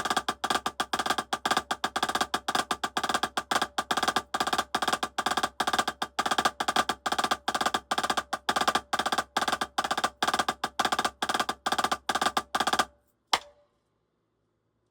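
Drumsticks playing a fast rudimental exercise: dense, even strokes in a steady rhythm that stop abruptly about 13 seconds in, then one single sharp hit.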